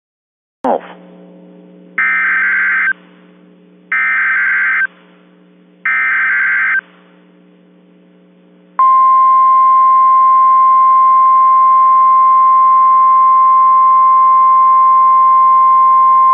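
NOAA Weather Radio emergency alert: a click as the receiver opens, then three one-second bursts of screechy SAME digital header data about two seconds apart, then the long, steady, single-pitched 1050 Hz warning alarm tone starting about nine seconds in. A faint hum sits underneath.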